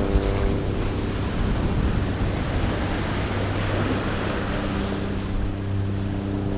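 A steady rushing noise that swells in the middle, over soft background music with held low notes.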